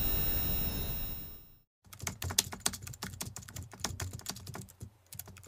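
A low intro drone fades out within the first second and a half. After a short gap comes a rapid, uneven run of computer-keyboard typing clicks, a typing sound effect.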